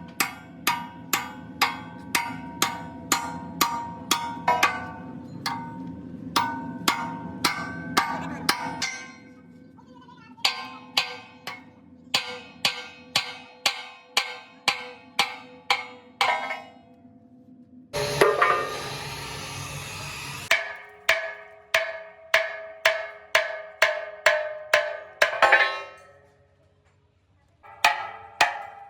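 Hammer blows on steel, about two a second in steady runs, each strike leaving a metallic ring whose pitch shifts from one run to the next. Near the middle a harsh hiss or grinding noise lasts a couple of seconds before the hammering resumes.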